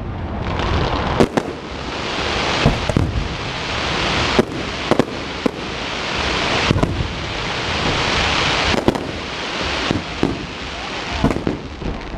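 Fireworks display: about a dozen sharp bangs of bursting shells at irregular intervals, over a continuous crackling hiss that swells and fades.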